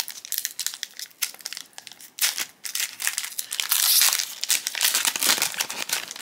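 Foil wrapper of a Sorcery: Contested Realm trading-card booster pack crinkling as it is torn open and peeled apart by hand, loudest about four seconds in.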